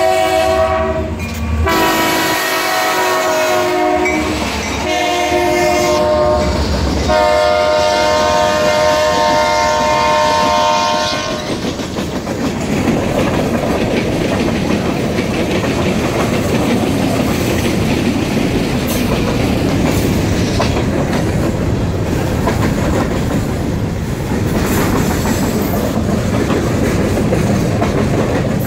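A Huron & Eastern freight locomotive sounds its horn as it passes over the road crossing, in several blasts with the last held about four seconds. After the horn stops, about a third of the way in, the freight cars roll by with a steady clickety-clack of wheels on the rails.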